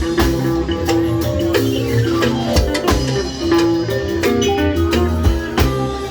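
Instrumental music with a steady drum beat, a bass line and plucked guitar.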